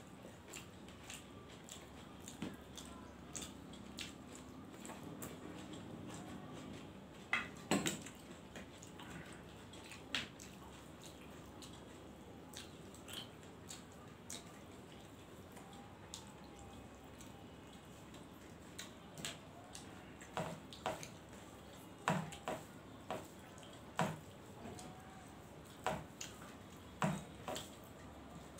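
Faint, irregular clicks and clinks of fingers and food against stainless steel plates and bowls as rice and mutton curry are mixed and eaten by hand, with a few sharper knocks about eight seconds in and a cluster of them near the end.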